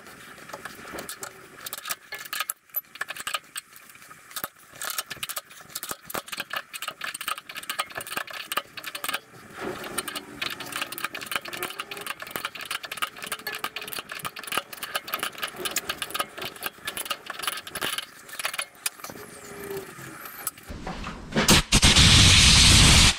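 M12 threading die being worked onto a metal pin held in the lathe chuck, giving a long run of irregular metallic clicks and ticks. Near the end a loud, steady blast of compressed air from an air gun blows the swarf off the thread and stops abruptly.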